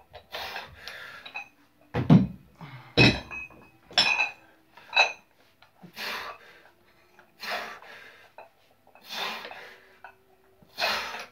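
Iron plates on a plate-loaded dumbbell clinking and rattling as it is curled, a run of sharp metallic clinks about a second apart, between loud breaths of exertion.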